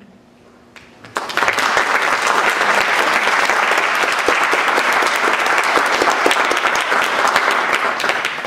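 Audience applauding: many hands clapping, starting sharply about a second in, holding steady, and dying away near the end.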